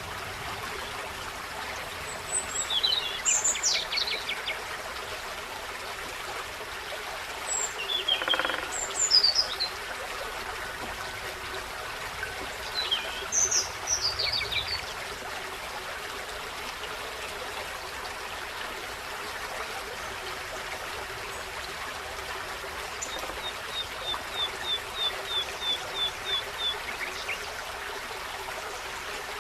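A forest stream running steadily, with songbirds singing over it: three short, falling song phrases in the first half and a quick run of about a dozen even, high notes, about four a second, near the end.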